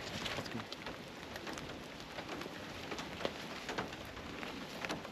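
Steady rain falling, with many scattered individual drops ticking against a surface.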